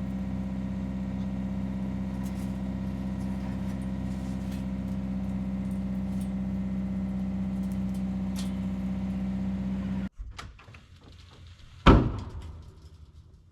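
Vehicle engine idling steadily, switched off about ten seconds in, then a car door slamming shut about two seconds later.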